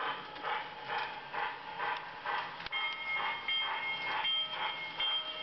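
LionChief locomotive sound board in a 3D-printed toy steam locomotive playing steam chuffing at about two chuffs a second, the chuff timed by a photo resistor and self-flashing LED in place of the flywheel tach strip. About halfway through, a steady two-tone steam whistle joins the chuffing and sounds until the end.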